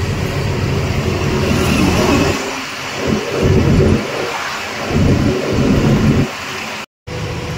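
Truck driving at speed: steady engine and road rumble, with heavy gusts of wind buffeting the microphone through the middle of the stretch. The sound cuts out briefly near the end.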